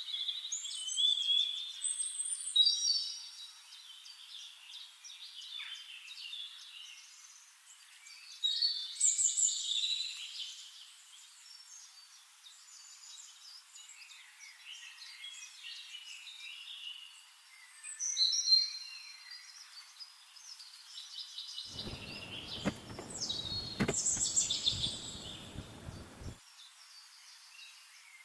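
Songbirds singing and chirping in repeated bursts of high trills. A few seconds of low rustling noise with a couple of sharp clicks come about three-quarters of the way through.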